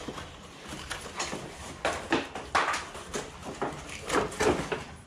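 Cardboard box and packaging being handled and cleared away, with irregular scrapes, rustles and knocks, loudest about two seconds in and again near four seconds.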